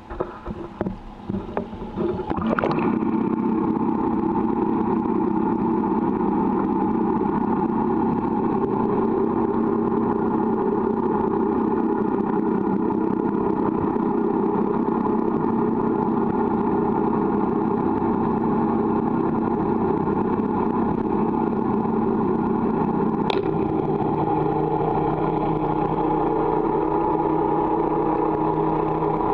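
Splashing and knocking for the first two seconds or so as the camera goes under the water. Then the steady underwater drone of Honda BF200 V6 four-stroke outboards running, their propeller turning. About two-thirds through comes a single sharp click and a slight drop in pitch.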